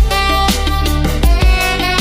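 Background music: an electronic dance track with a kick drum beat, bass and bright melodic synth or string lines.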